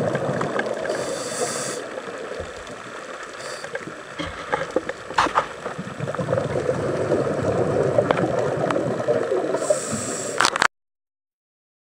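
Scuba diver breathing through a regulator underwater: short hissing inhalations and a steady rush of exhaled bubbles, with a few sharp clicks. The sound cuts off abruptly near the end.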